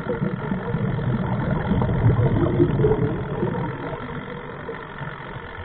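Scuba diver exhaling through a regulator: a rush of bubbles rumbling past the mask-mounted camera underwater. It swells for about three seconds, then fades.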